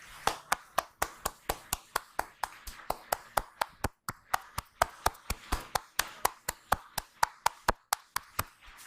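A barber's hands slapping rhythmically in a percussive massage, clapping sharply about three to four times a second, with a brief pause about four seconds in.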